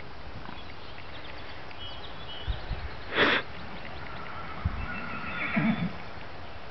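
Horse calling: a short loud snort about three seconds in, then a whinny about five seconds in, with a few dull thuds of hooves on turf.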